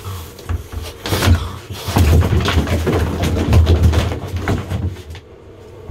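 Plastic storage tub and lid knocking, bumping and scraping against a bathtub in a rapid, loud scuffle while a feral cat is being trapped, dying down about five seconds in.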